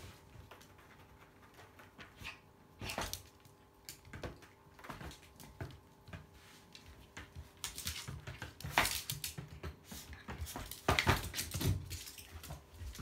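Toy poodle and orange tabby kitten scuffling in play: scattered taps, scrabbles and light thumps of paws and claws on a wooden floor and a cardboard scratcher, busier and louder in the second half.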